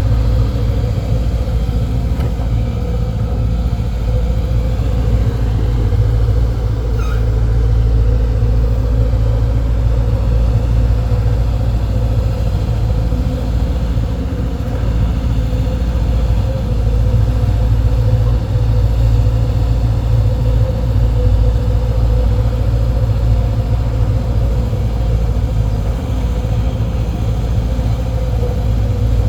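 Diesel engine of a hydraulic excavator running steadily under work, a heavy low rumble with a faint steady hum.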